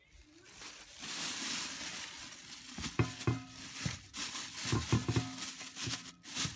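Rustling, crinkling handling noise with several sharp knocks and clatters, a few of them ringing briefly.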